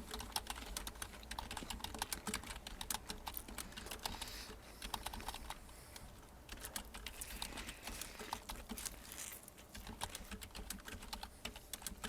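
Computer keyboard being typed on: a fast, uneven run of key clicks with a couple of brief pauses.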